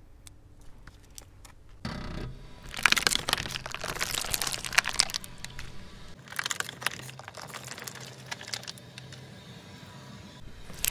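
Thin clear plastic tub crackling and crumpling as a car tyre rolls over it and squashes the jelly inside, in two stretches of crunching a couple of seconds apart. A low steady hum runs beneath from about two seconds in.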